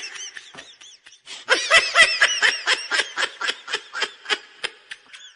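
Hearty, high-pitched laughter in quick repeated bursts, about five a second, with a short break about a second in, then tailing off.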